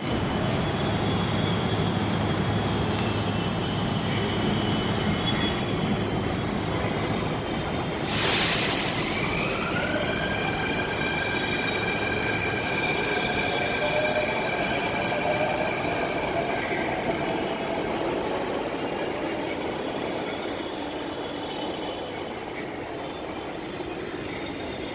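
Mumbai Metro train pulling out of a station: a sharp hiss of air about eight seconds in, then the electric traction motors' whine rising in pitch and holding as the train gathers speed. The running noise then fades as the train leaves.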